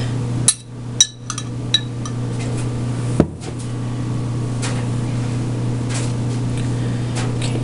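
A metal spoon clicking and scraping as spaghetti sauce is spread over garlic toast on a foil-lined pan: a few sharp clicks in the first two seconds and a single knock about three seconds in, over a steady low hum.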